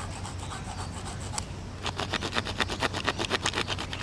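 Multitool's small saw blade sawing through a piece of wood in quick back-and-forth strokes, lighter at first and getting clearly louder about two seconds in.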